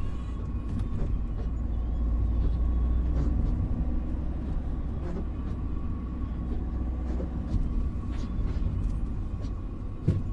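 Car driving on a rain-wet street, heard from inside the cabin: a steady low rumble of engine and road with tyre hiss, scattered light clicks, and a short knock near the end.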